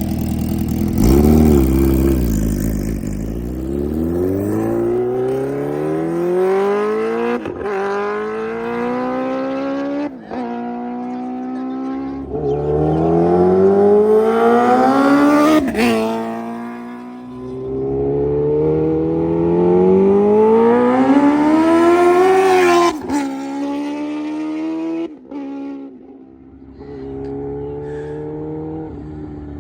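Kawasaki Ninja H2R's supercharged inline-four engine accelerating hard through the gears. The pitch climbs in four long rises, each ending in a sharp crack and a sudden drop at the upshift. About 23 s in the engine eases off, and the pitch falls and settles lower.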